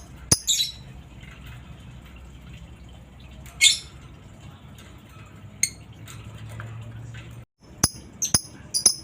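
Lovebird giving short, sharp, high-pitched chirps, spaced irregularly with a few in quick succession near the end, over a low steady background hum.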